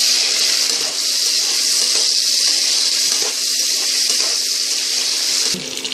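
Chopped onions and tomatoes sizzling in hot oil as they are stirred and sautéed in a pot: a steady frying hiss that drops off suddenly near the end.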